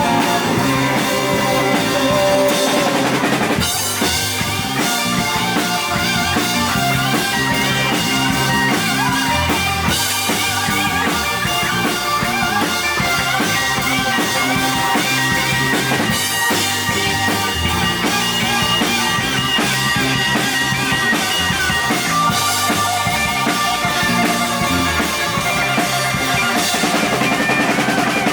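Live rock band playing an instrumental stretch with the drum kit to the fore. The music shifts about four seconds in and then runs on steadily.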